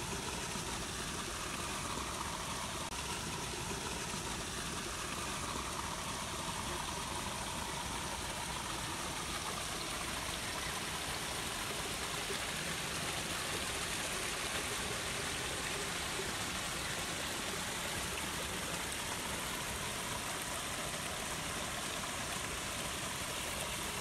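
Steady rushing of flowing water, an even hiss with no breaks.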